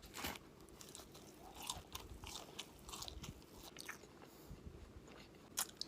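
A person biting and chewing breaded boneless chicken wings close to the microphone: soft, irregular crunching, with one sharper click near the end.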